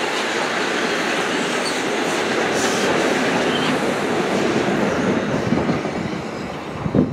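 Metro-North M7A electric multiple-unit commuter train rolling past at close range, its wheels rumbling and clacking over the rail joints. The sound eases as the last car goes by, with a couple of sharp knocks near the end.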